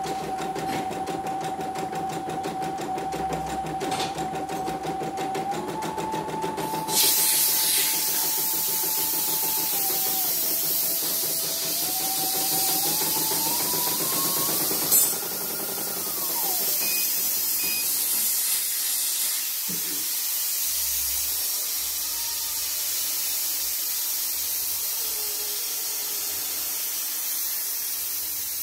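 CNY computerized embroidery machine stitching a test design, its motor tone stepping up and down in pitch as the speed changes, then rising and falling away about sixteen seconds in as it stops. About seven seconds in a steady hiss starts and carries on.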